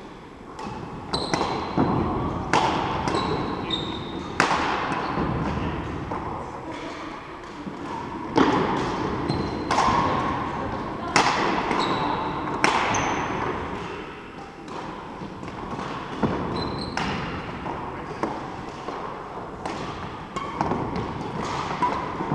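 Badminton rackets striking a shuttlecock during a rally: sharp cracks about one to two seconds apart, echoing in a large hall. Between the hits come short high squeaks of trainers on the wooden court floor.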